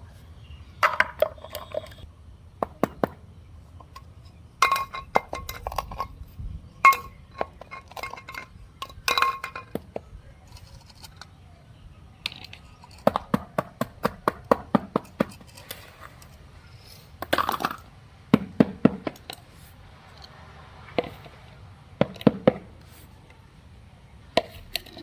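Small hard objects clinking and tapping together in irregular clusters of sharp clicks, some ringing briefly.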